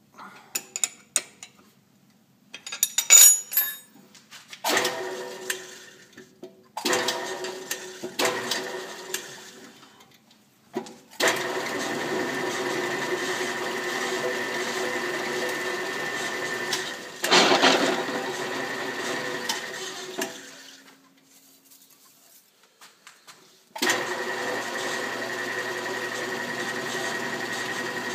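Metal clinks and rattles, then an electric machine tool for boring holes in steel plate starting up in short runs. It runs steadily for several seconds with a steady hum, stops, and starts again near the end.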